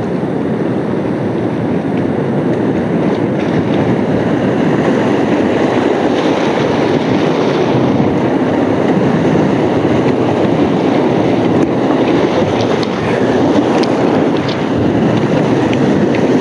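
Steady rushing roar of a whitewater rapid, heard from a kayak in the current, with a few faint paddle splashes.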